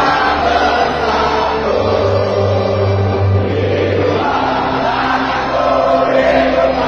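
Music with a choir singing over held bass notes.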